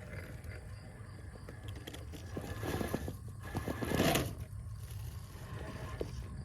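1/6-scale Redcat Vertex 6 RC rock crawler crawling over rock and dirt: tyres and chassis scraping and crunching, in two stretches around the middle, the second the loudest.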